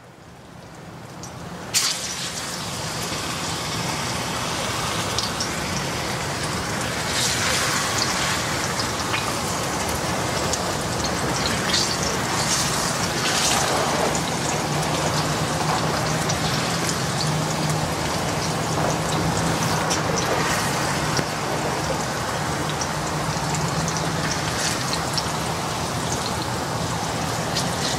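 Plantain slices sizzling as they fry in hot olive oil in a pot; the sizzle builds over the first few seconds and then holds steady. A sharp knock about two seconds in.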